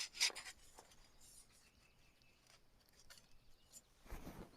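Faint scratching strokes of drawing lines on the sawn end of a maple log, two brief strokes at the start and light scratches after, with a soft low bump near the end.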